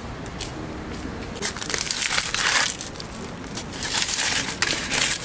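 Two bursts of crinkling, crushing noise, the first about a second and a half in and the second near four seconds in.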